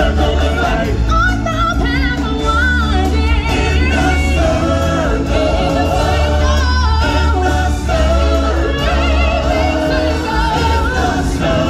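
Stage-show music: a choir and solo voices singing over a loud band accompaniment with a steady, heavy bass.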